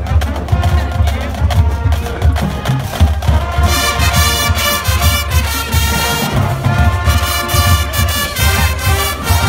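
High school marching band playing its field show: drums and low brass, with the full horn line coming in loud about three and a half seconds in.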